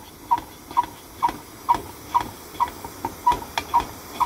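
Hand pump of a lit Alps 802 kerosene stove being worked, about two strokes a second, each stroke a short squeaky puff with a click. This pressurises the fuel tank to raise the flame.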